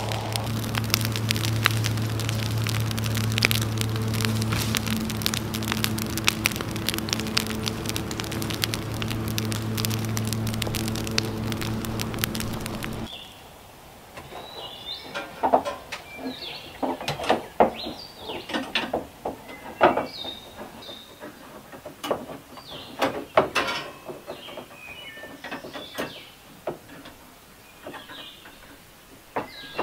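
Brush-pile fire crackling over a steady low hum. About halfway through this cuts off suddenly to a quieter stretch of scattered sharp clinks and knocks from hands working inside a band sawmill's blade-wheel housing, with birds chirping.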